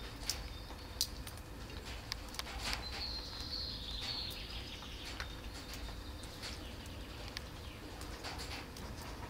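Cats and kittens eating from plastic food trays: scattered small clicks and ticks of chewing and lapping. A small bird chirps in a high trill from about three to four and a half seconds in.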